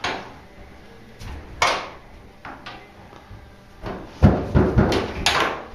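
Knocks and thumps of a puppy clambering about in a laundry machine: a few scattered bumps, then a flurry of louder knocks about four seconds in.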